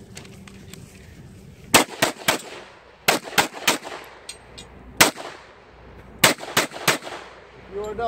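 Pistol shots fired in quick strings: about ten shots in four groups of two or three, with a single shot in the middle, each cracking sharply with a short echo.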